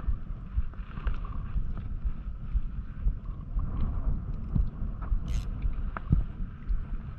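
Wind rumbling on the microphone over shallow sea water sloshing, with a few faint clicks and a short hiss about five seconds in.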